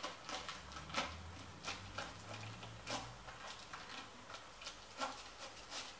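Plastic wrapping crinkling and crackling as it is peeled off a rolled poster, in irregular sharp crackles.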